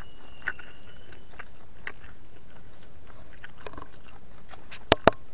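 A person eating close to the microphone: soft chewing and crunching with scattered small clicks of a spoon and food containers. Near the end come two sharp clicks close together, the loudest sounds.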